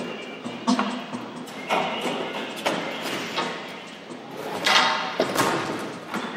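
A long pole knocking and clattering against hard objects as it is moved about, with a sharp knock roughly every second, about five in all, each ringing briefly.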